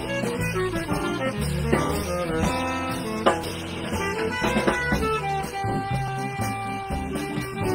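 A small jazz band playing live: keyboard lines over walking upright bass and drum kit.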